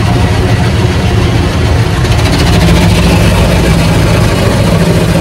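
Automatic car wash running over the car, heard from inside the cabin: a loud, steady rush of water spray and machinery over a low rumble.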